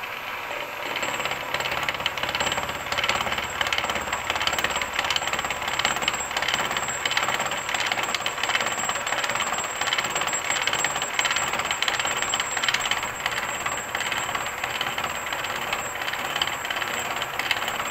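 Milling machine with an involute gear cutter on a horizontal arbor, cutting a tooth into a 4340 chromoly steel blank on the roughing pass at 22 mm per minute feed. A steady cutting noise full of fast ticks, getting louder about a second in as the cutter takes hold of the steel.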